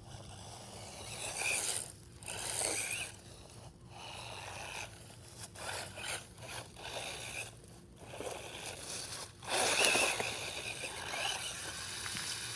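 Battery-powered Gptoy RC buggy driving through the loose dirt of an ant nest: irregular bursts of scraping and crunching from its wheels, with short whines as the electric motor revs. Loudest about ten seconds in.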